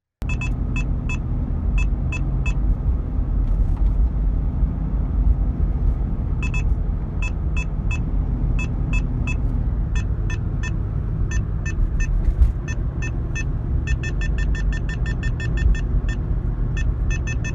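Low road rumble inside a moving car, with a dashboard police-car detector sounding short electronic alert beeps in groups of two or three. Partway through, a second, lower beep tone joins in, and near the end the beeps quicken into a rapid run. The beeps are the detector's warning that a police car is nearby.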